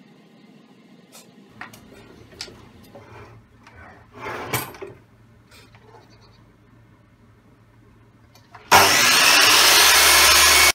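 HM100Lu sliding mitre saw switched on near the end, its motor and blade running loud and steady as the blade comes down through a small wooden block. Before that, only light handling clicks and a brief scrape.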